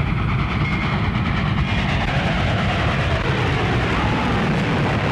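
A vehicle running with a steady, rapid clattering rumble on an early sound-film soundtrack.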